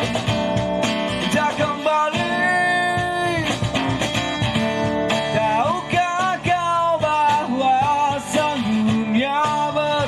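Band music with guitar: a melody line that bends and glides in pitch over steady accompaniment, in an instrumental passage between sung lines.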